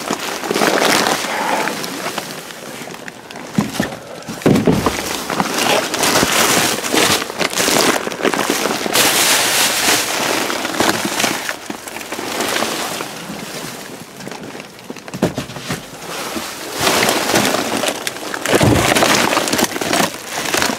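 Plastic bags and food packaging rustling and crinkling as hands dig through a dumpster of bagged groceries, with a few dull knocks about four seconds in and near the end.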